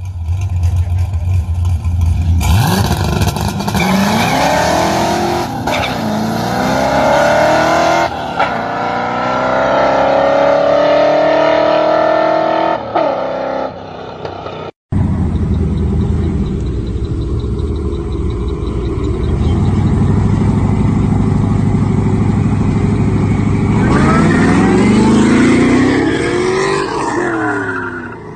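Supercharged Ford SVT Lightning V8 pickup and a rival car launching in a drag race, their engines revving up through several gear changes. After a cut, engines drone and then rise steeply in pitch near the end as cars accelerate toward the camera and past it.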